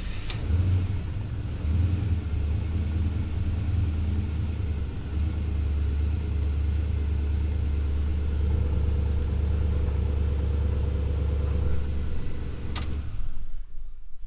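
Twin-turbo LS V8 engine catching and settling into a steady idle, then switched off about 13 seconds in. It is running again with fuel pressure restored, after a loss of fuel pressure.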